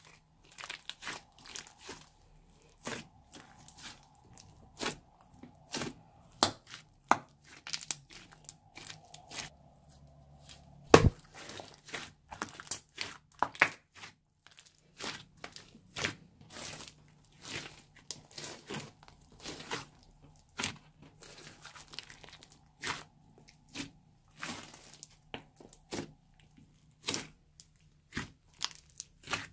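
Hands kneading, stretching and pressing a large grey beaded slime, making a run of irregular sticky pops, clicks and crackles, with one sharper pop about 11 seconds in.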